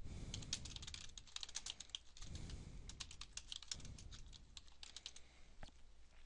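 Computer keyboard typing: a quick, irregular run of faint keystroke clicks as a sentence is typed.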